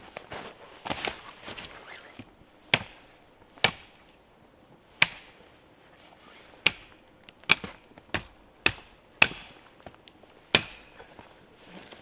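Hatchet chopping into a downed log: about nine sharp strikes at uneven intervals, coming closer together in the second half.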